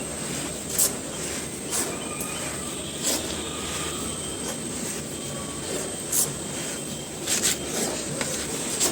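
Soft, dry crumbly cones being crushed and crumbled: a steady gritty crumbling with about seven sharp crunches spread through it.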